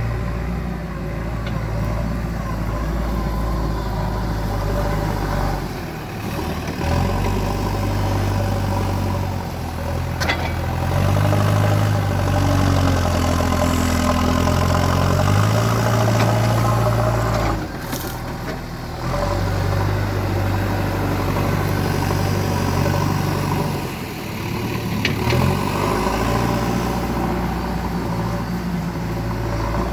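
JCB 3DX backhoe loader's diesel engine running as the machine works, its revs rising and falling several times, with a few short knocks.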